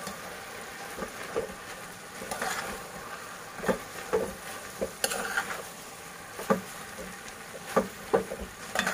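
Metal spoon stirring vermicelli and vegetables in a metal cooking pot, its edge scraping and knocking against the pot at irregular moments over a steady low sizzle.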